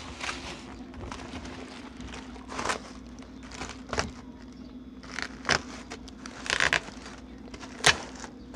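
Cardboard box in clear plastic wrapping being handled: scattered rustles and a few short taps and knocks, the sharpest near the end, over a steady low hum.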